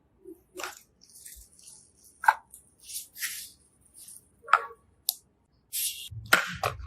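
Slime being handled and pressed: a series of short, separate crackling and clicking squishes, about a dozen, with the loudest and fullest ones near the end.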